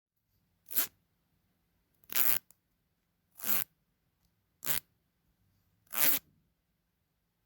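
Teeth of a comb raked quickly in five separate short strokes, each a brief rasp, about one and a quarter seconds apart: a foley imitation of a zip being pulled.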